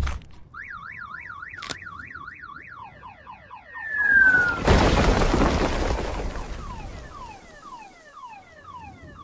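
Cartoon sound effects. A car alarm warbles for about two and a half seconds, then comes a falling whistle. About five seconds in there is a loud crashing rumble that fades over a couple of seconds, under a run of short falling whistles.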